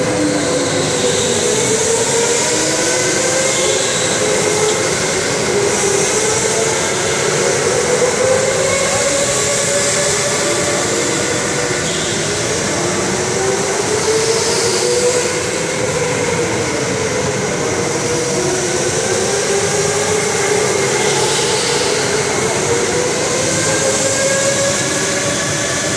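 Several electric go-karts running at once, their motor whines overlapping and gliding up and down in pitch as they speed up and slow down around the track, over a steady hiss.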